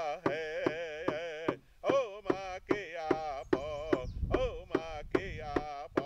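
Powwow drum struck in a steady beat, about three to four strokes a second, with high-pitched singing that wavers strongly on each held note.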